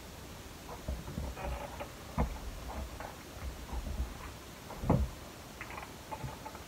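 Scattered small taps, clicks and paper rustles from paper cut-outs and craft tools being handled and pressed down on a cutting mat. There is a sharper knock about two seconds in and another just before five seconds.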